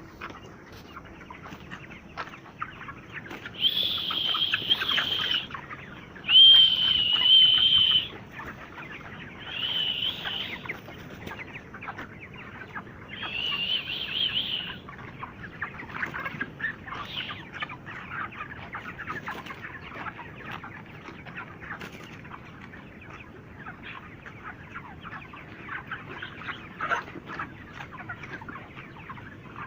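A flock of 32-day-old broiler chickens clucking and cheeping. In the first half, four loud, high, drawn-out calls stand out.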